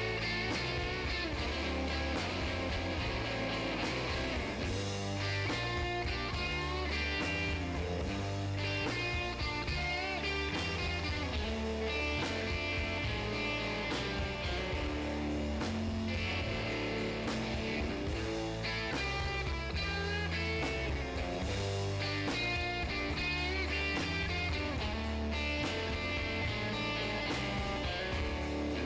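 Background music: a guitar-led rock instrumental over a steady, repeating bass line.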